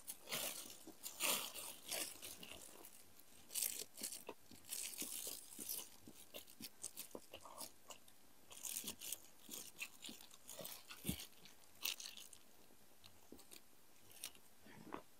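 Close-up chewing and crunching of food, in irregular bites with small mouth clicks, fairly quiet.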